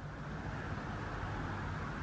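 Steady low hum with a faint even hiss, with no distinct knocks or clicks: background room noise.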